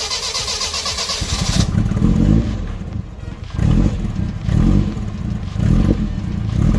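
Lotus Esprit Turbo engine revving, its sound rising and falling in repeated surges about once a second, after a loud rushing hiss in the first second and a half.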